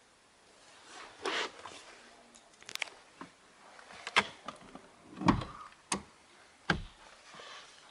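Hand handling car seat upholstery: a brief rub about a second in, then a string of soft clicks and knocks against the seat and headrest, the loudest a dull thump a little past five seconds.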